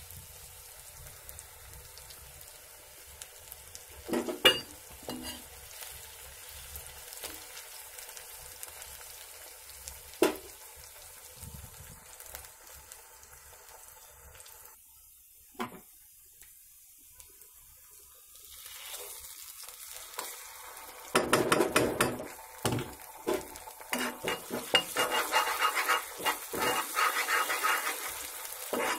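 Chopped onions sizzling in oil in a kadai, a faint steady hiss broken by a few sharp knocks. In the last third a steel spatula stirs and scrapes the onions around the pan, louder and busier.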